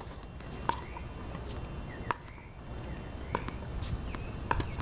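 A tennis ball bounced on a hard court before a serve: a sharp pop about every second or so, five times, over a low rumble. Short high chirps sound between the bounces.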